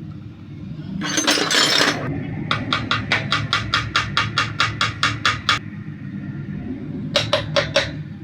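Hand tool working metal on a motorcycle engine's crankcase during reassembly: a brief rustle, then a quick, even run of about twenty sharp metallic clicks, roughly six a second, and three more near the end.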